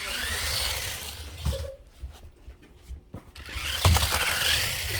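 Toy remote-control stunt car's small electric drive motors whirring in two bursts, the whine rising and falling in pitch as it drives and spins, with a quieter pause between.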